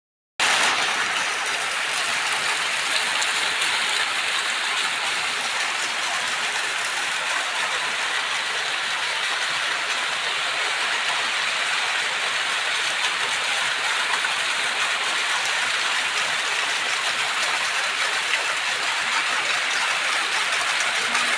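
Steady heavy rain falling, an even hiss of rain on surfaces.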